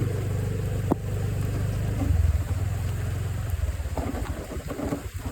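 A motor vehicle's engine running close by, swelling briefly about two seconds in, then settling to a slower, uneven beat near the end.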